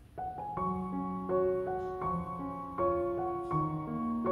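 Background music: a slow, gentle piano melody, a new note or chord struck about every half second.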